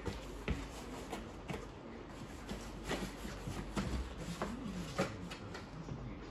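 Cardboard packaging being handled during unboxing: light rustling and scraping with a few soft knocks and ticks.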